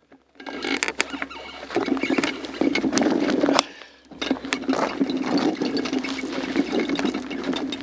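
Mountain bike riding over rough trail: a continuous clatter of rattles and sharp knocks, over a steady low hum and rushing noise, starting about half a second in and dropping away briefly near the middle.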